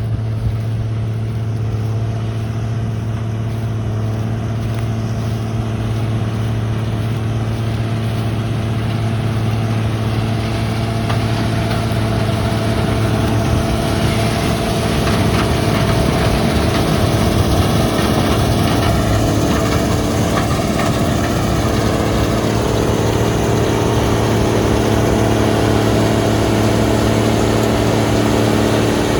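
Engine of harvest machinery running steadily at a constant pitch. There is extra mechanical noise around the middle, and the tone shifts slightly about two-thirds of the way through.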